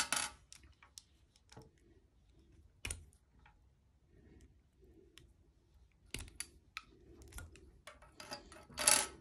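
Scattered small plastic clicks and taps as slim plastic lipstick tubes are handled and their caps pulled off, with faint handling rustle between. The loudest click comes near the end.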